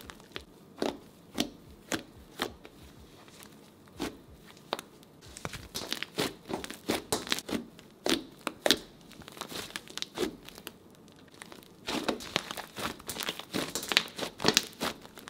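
Hands kneading and stretching fluffy shaving-foam slime, which makes irregular crackles and pops as it is pulled and squeezed. The crackling grows denser near the end.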